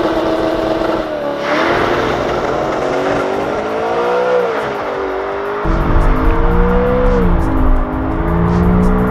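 BMW E92 M3's 4.0-litre V8 held at high revs, then launching hard and pulling away at full throttle, its pitch climbing and dropping at two upshifts. The last part is heard from inside the car, with a deeper rumble.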